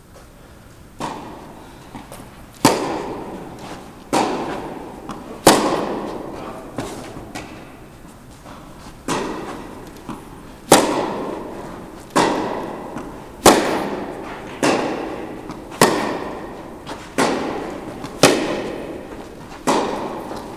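Tennis rally: a ball struck by rackets back and forth, a sharp hit about every second and a half, each echoing through a large indoor tennis hall, with fainter knocks of the ball bouncing between hits.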